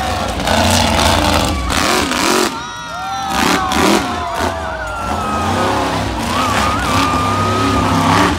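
Monster truck's engine revving hard, its pitch swooping up and down as the truck launches off a dirt ramp, with a thud of the jump's landing near the middle. The engine then keeps running as the truck drives on.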